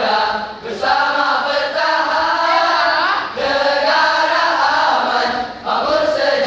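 A large group of boys' voices in choral speaking, chanting in unison in pitched, drawn-out phrases with brief pauses between them.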